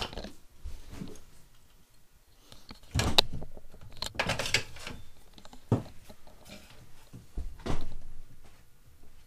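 Scattered metal clanks, knocks and scrapes of tools and parts being handled while a swing arm bolt is worked into a quad's frame, with louder knocks about three seconds in, around four and a half seconds, and near eight seconds.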